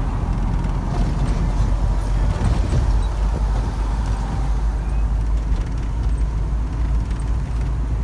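Iveco Daily motorhome driving on the road, a steady low engine and road rumble.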